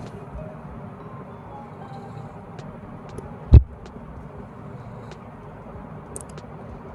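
Low steady background noise with a few faint clicks and one sharp thump about three and a half seconds in.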